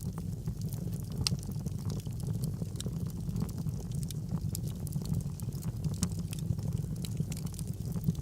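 Wood fire burning in a fireplace: a steady low rumble of the flames with frequent, irregular sharp crackles and pops.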